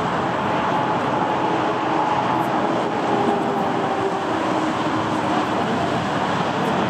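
Airbus A330 jet engines at climb power just after takeoff: a steady, even jet noise with faint tones drifting slightly lower.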